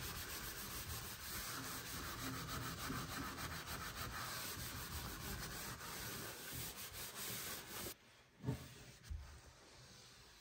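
Gloved hand scrubbing cleaning foam over the inside walls and floor of an oven, a steady rubbing made of many quick strokes. It stops abruptly about eight seconds in, followed by two short knocks.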